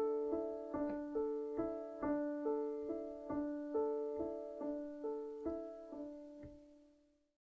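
Piano music: a steady repeating figure of single notes, about two or three a second, fading out and stopping near the end.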